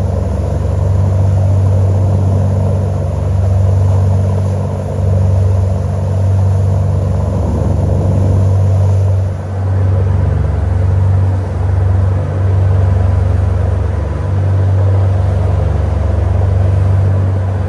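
Fishing boat's engine running under way, a steady low drone that swells and dips every second or two as the boat rides the waves.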